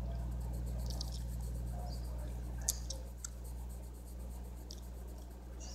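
Colored pencil scratching on coloring-book paper in brief, scattered strokes, over a steady low hum.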